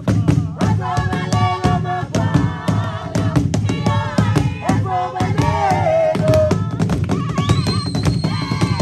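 A group of voices singing and chanting a traditional song over a steady beat. A high, steady tone joins about three-quarters of the way through.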